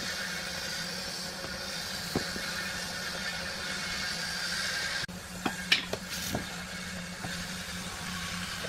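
Pieces of wood knocking as they are set down and handled on a concrete floor: a single knock about two seconds in, then a cluster of short wooden clacks a little past halfway, over a steady background hum.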